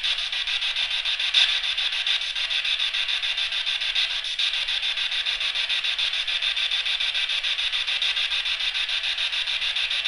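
A steady, high-pitched chirring of night insects, pulsing fast and evenly without a break. A brief tap stands out about one and a half seconds in.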